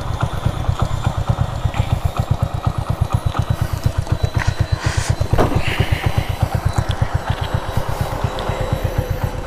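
Hero Honda Splendor's 97 cc single-cylinder four-stroke engine idling through a modified exhaust: a steady, even thumping beat of about eight pulses a second.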